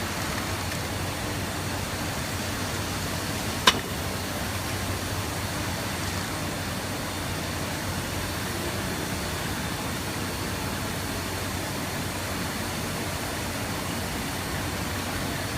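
A steady, even rushing noise with a faint low hum, broken by one sharp click about three and a half seconds in.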